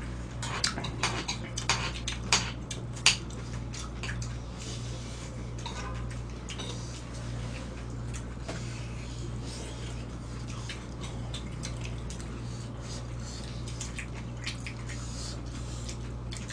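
Metal spoons and chopsticks clinking and scraping against stone pots and dishes as several people eat: quick clicks, busiest in the first few seconds and sparser after. A steady low hum runs underneath.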